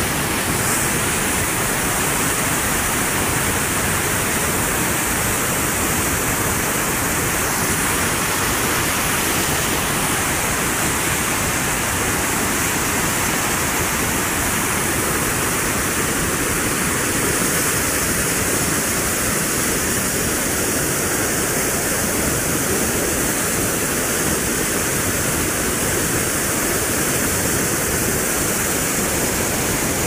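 Waterfall cascading down a sloping rock slab: white water rushing steadily and unbroken.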